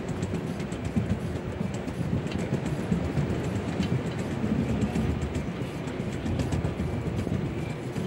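Wheelchair wheels rolling over a wooden pier deck: a steady, rough rumble with light irregular clicks from the planks.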